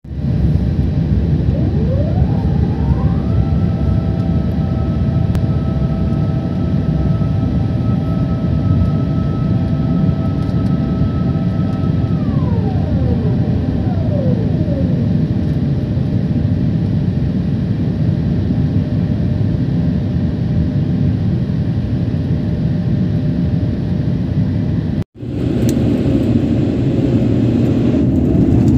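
Steady rumble of a jet airliner's engines and airflow heard inside the cabin in flight, with a whine that rises in pitch about two seconds in, holds for about ten seconds, then falls away. About 25 seconds in it cuts abruptly to the cabin noise of the airliner on the ground with engines running, growing louder near the end.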